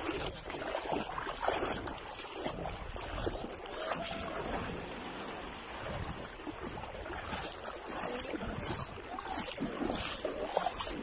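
Shallow sea water splashing and sloshing in irregular bursts as someone wades through it, with wind rumbling on the microphone.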